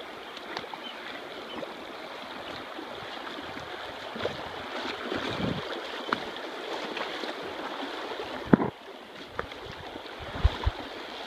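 Shallow river water splashing and rushing around the legs of someone wading across a stony riverbed while pushing a mountain bike, with a few sharp knocks, the loudest about eight and a half seconds in.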